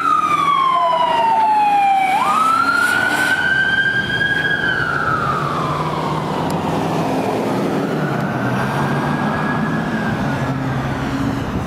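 Electronic wail siren of a U.S. Forest Service law enforcement vehicle running code 3, with engine and tyre noise underneath. The tone slowly falls, jumps back up about two seconds in, holds, falls again, and comes back fainter near the end as the vehicles pull away.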